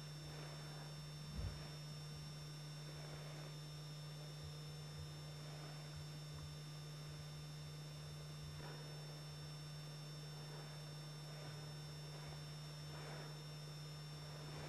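Steady low electrical hum over faint hiss, with two thin steady high tones above it. A single soft low thump comes about a second and a half in.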